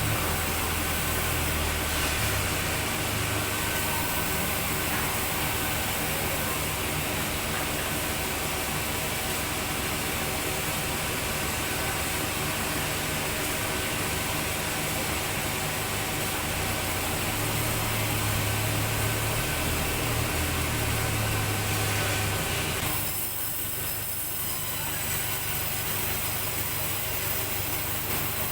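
Sawmill machinery running steadily, a continuous mechanical hum under an even hiss, with the sound of the saw changing abruptly about 23 seconds in.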